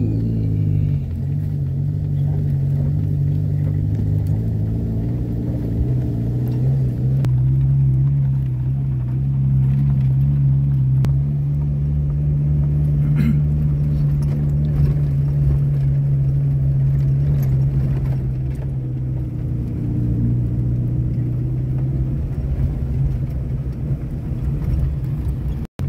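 Off-road 4x4's engine pulling steadily under load as it climbs a steep, rocky track, with a few faint knocks.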